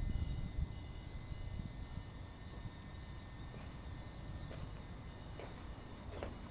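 Night insects chirping in a steady, fast high trill. A low rumble fades out about a second in, and a few faint clicks follow later.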